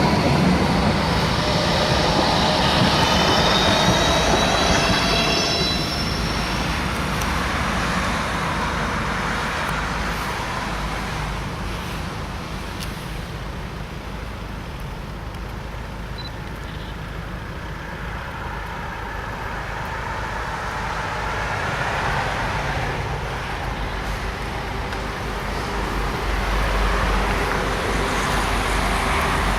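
A rail vehicle running past on tram tracks, with a high squeal of several tones in the first few seconds. Steady running noise follows, fading and then swelling again, mixed with road traffic.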